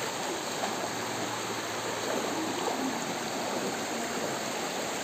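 Steady rushing of flowing floodwater.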